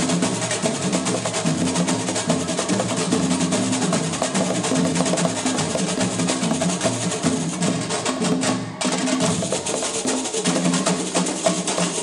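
Live samba percussion: tall hand drums played in a fast, dense rhythm, with a short drop in the playing about nine seconds in.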